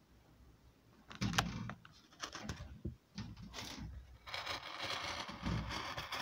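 Rawhide strip being drawn through a metal hand lace cutter, the blade slicing off a very fine lace: scattered clicks and scrapes, then a steady rasp from about four seconds in.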